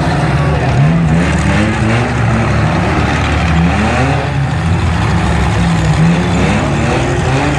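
Engines of several demolition derby cars revving hard, their pitch rising and falling as the cars push against each other.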